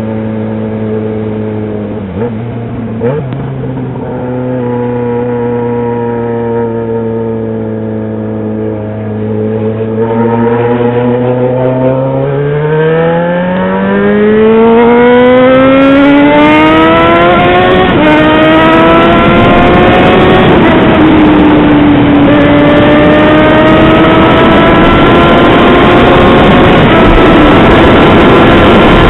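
Yamaha XJ6's inline-four engine running loud at a steady cruise, then accelerating hard from about twelve seconds in: the pitch climbs, dips at an upshift, climbs again and shifts once more before settling into a slow rise. Wind noise grows with the speed.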